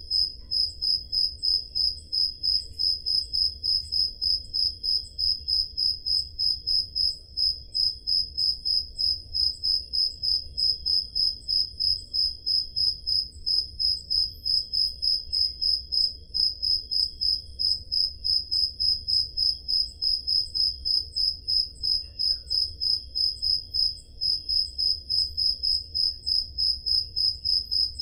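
Crickets chirping in a steady, even rhythm of about three high-pitched chirps a second, with a fainter second chirping tone underneath.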